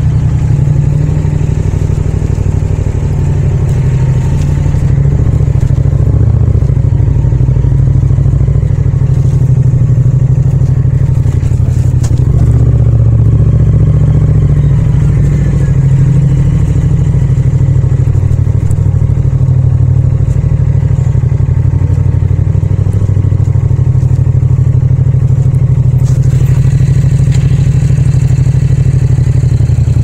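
Yamaha MT-07 (FZ-07) 689 cc parallel-twin engine and exhaust running at low revs, its pitch rising and falling a little with the throttle while the bike rides.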